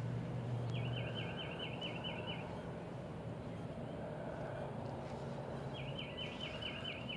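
A songbird singing a quick trill of about eight repeated high notes, twice, several seconds apart, over a steady low hum.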